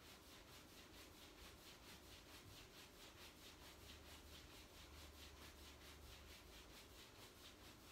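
Faint, fast, even swishing of hands rubbing up and down over a cotton T-shirt on the lower back.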